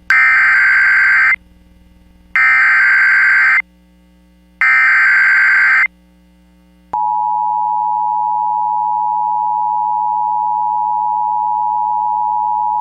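NOAA Weather Radio Emergency Alert System alert: three identical screeching bursts of SAME header data, each a little over a second long and a second apart, encoding a severe thunderstorm warning. About seven seconds in, the single steady 1050 Hz weather-radio warning alarm tone starts.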